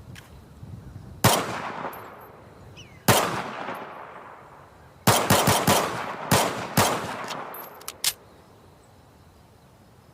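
M1911 pistol firing about eight shots, each with a long echoing tail: two single shots a couple of seconds apart, a quick string of four, then two more. Two sharp clicks follow the last shot.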